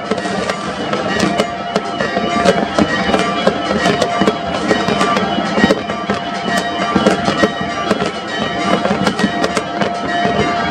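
New Year fireworks going off in quick succession, sharp bangs and crackles, over a continuous droning tone.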